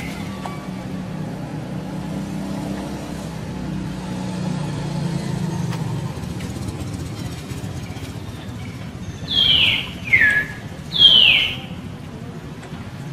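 Three loud, high calls, each sliding downward and lasting about half a second, come close together near the end, over a steady low drone.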